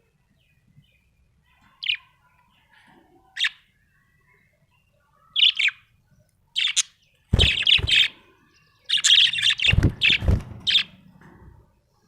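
Budgerigar chirping: short single chirps every second or two, then a busier run of rapid chattering chirps in the second half, with a few low thumps among it.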